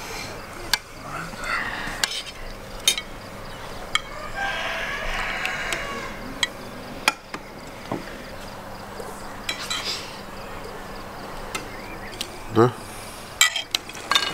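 Metal spoons clinking and scraping against a glass bowl and enamel soup bowls as liquid is spooned from one to the other, in scattered short clicks. Low voices talk briefly about four to six seconds in.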